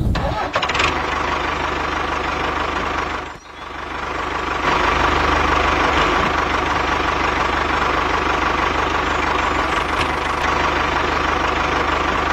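Engine running steadily with an even low pulse. It drops away briefly about three and a half seconds in, then returns a little louder and holds steady.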